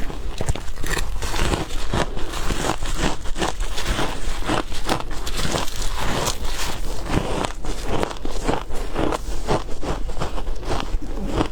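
Biting and crunching of matcha shaved ice close to the microphone, with many quick crunches in a rapid, continuous run.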